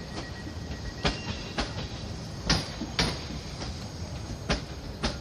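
Train wheels knocking over rail joints and points as the train rolls slowly, the knocks coming in pairs about half a second apart over a steady running rumble.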